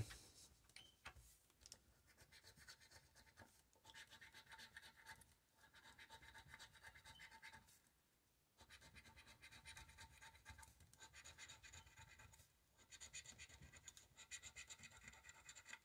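Coin scraping the scratch-off coating from a lottery scratcher ticket, in faint bouts of quick scratching broken by short pauses.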